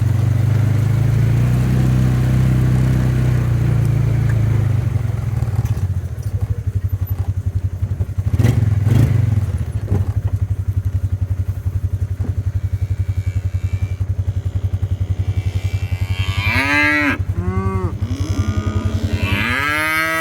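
Cattle mooing: a few arching calls about three-quarters of the way through and another long call near the end, over a vehicle engine idling steadily.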